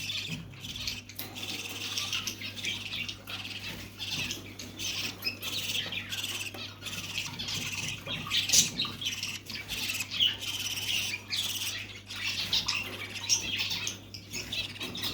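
Lovebirds and their chicks giving a constant stream of high, squeaky chattering calls, over a steady low hum.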